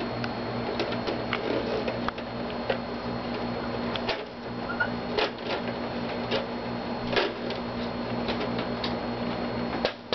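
Irregular plastic clicks and knocks as a toy Barbie Dreamhouse's panels and door are handled and moved, over a steady background hum.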